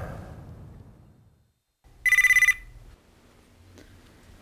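Corded push-button desk telephone ringing: one short, fast-pulsing electronic trill about two seconds in.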